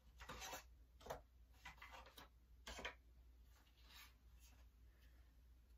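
Near silence broken by about seven faint, short rubbing and scraping noises, like hands handling a painted cutout piece and its backer.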